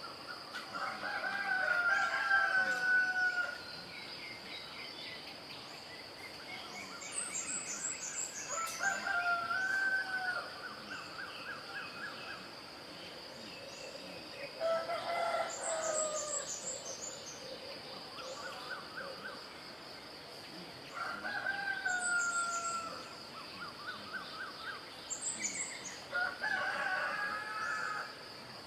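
A rooster crowing repeatedly, five long crows spaced roughly six seconds apart. A steady high-pitched insect drone runs underneath, and small birds chirp briefly between the crows.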